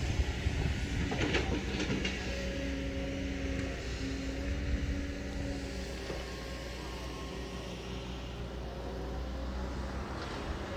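Kobelco excavator's diesel engine running steadily, with a low drone and a few higher tones that come and go. A few sharp knocks sound about a second in.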